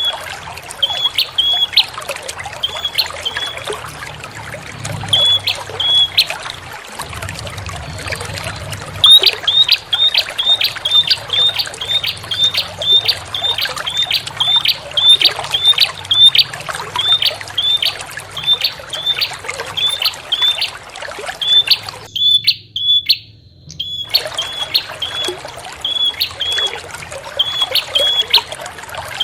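Prenjak (prinia) calls played as a lure: short, sharp, high chirps, first in spaced pairs, then a fast run of about two to three a second from about nine seconds in, over a steady trickle of water. Calls and water cut out together for about two seconds about three quarters of the way through, then resume.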